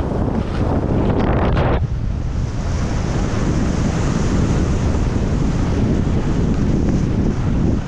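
Wind rushing and buffeting the camera microphone at speed, over the hiss of skis sliding on snow. The first two seconds are rougher and louder, then it settles into a steady rush.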